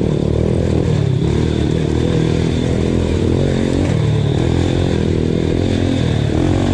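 Honda Win 125cc motorcycle engine running while the bike is ridden, its pitch rising and falling several times with the throttle.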